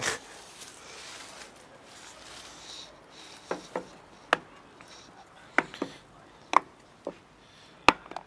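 A plastic food container is set down on a wooden bench with a knock, then a run of about eight sharp plastic clicks as the latches of its clip-lock lid are worked open.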